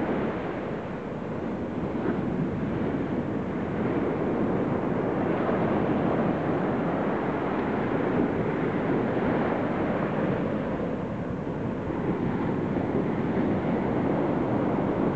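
Ocean surf breaking and washing up a sandy beach: a steady, continuous wash of waves, with wind on the microphone.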